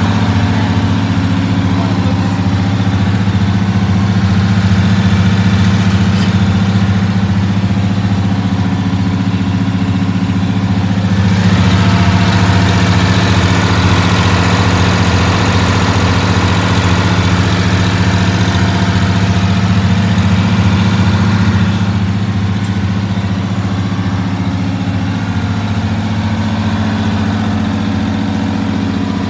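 GMC bus's diesel engine idling steadily, louder and with more hiss for about ten seconds in the middle as the microphone is close to the engine.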